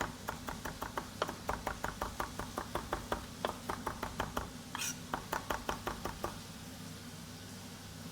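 Kitchen knife chopping fresh coriander on a cutting board: quick, even knocks of the blade, about four a second, with one brief scrape near the middle. The chopping stops about six seconds in, leaving a low steady hum.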